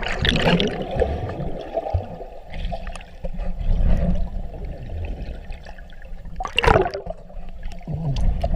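Water sloshing and gurgling, muffled as heard by a camera held underwater, with two louder rushes of bubbles or splashing: one at the start and one about three-quarters of the way through.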